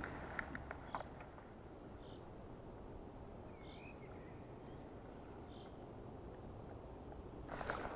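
Quiet lakeside ambience with a few faint, short bird chirps. A few clicks of rod and reel handling fall in the first second, and a burst of scratchy handling noise from the spinning reel starts near the end.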